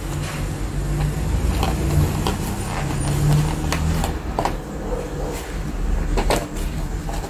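A plastic doll box and its moulded tray being handled, giving scattered short clicks and crackles, over a steady low rumble.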